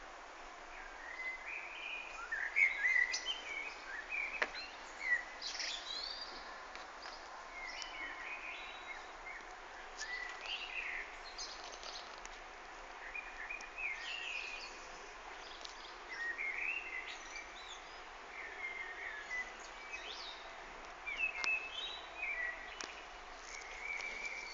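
A bird singing: short chirping phrases repeated every two to three seconds over a steady background hiss.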